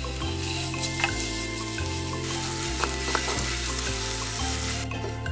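Chopped onions and ginger-garlic paste sizzling in hot oil in a nonstick frying pan, stirred and scraped with a silicone spatula. The sizzle drops away shortly before the end.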